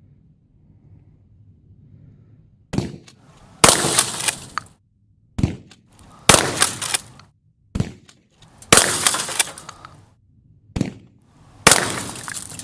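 Gunfire at a washing machine: four loud bangs in pairs, each a short sharp crack followed about a second later by a louder, longer crashing burst that dies away.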